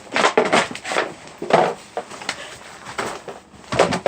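An expired milk container being smashed: a series of loud hits, several in quick succession in the first second, then single blows about every three-quarters of a second.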